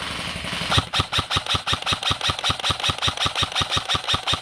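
Airsoft rifle firing a rapid, steady stream of shots, about six a second, starting just under a second in.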